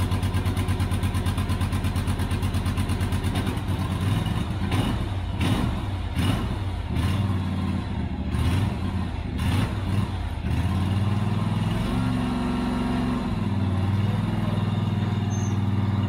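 Husqvarna ride-on mower engine running steadily. A run of sharp clunks comes between about four and ten seconds in, then the engine note changes and rises. The engine runs but the mower will not drive off.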